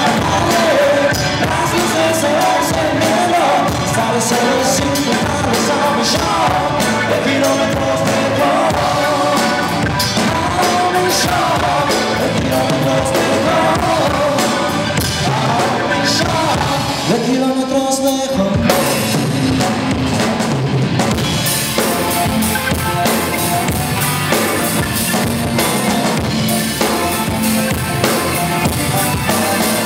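Rock band playing live on stage during a soundcheck run-through: electric guitars, bass, keyboard and drum kit under a sung lead vocal. About seventeen seconds in, the band thins for a moment, then comes back in full, with the cymbals louder.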